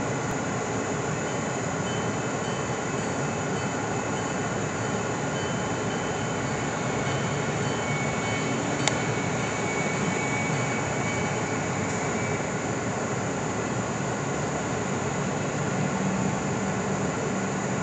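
Diesel switcher locomotive running as it pulls a train of empty freight cars past, a steady engine drone that grows a little stronger near the end. A faint thin whine sounds for a few seconds midway, and there is one sharp click about nine seconds in.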